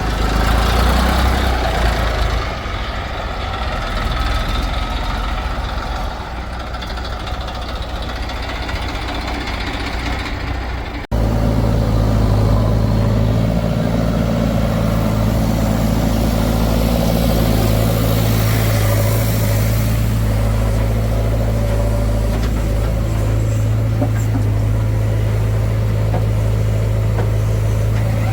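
Heavy diesel machinery running. There is an abrupt cut about eleven seconds in; after it comes a steady, even engine note.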